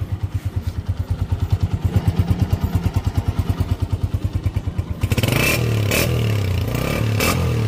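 Honda CG125 single-cylinder four-stroke engine running through a chrome aftermarket silencer. It idles with an even exhaust thump, about a dozen beats a second, then is revved up louder about five seconds in.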